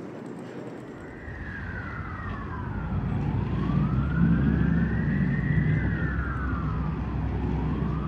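An emergency-vehicle siren wailing in slow rising and falling sweeps, about one cycle every four seconds, over a low engine rumble that swells louder toward the middle.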